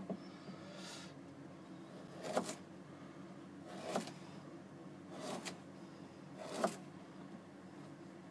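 Kitchen knife slicing burdock root into thin rounds on a plastic cutting board: a short crisp cut ending in a light knock on the board, five times, roughly every second and a half, over a faint steady hum.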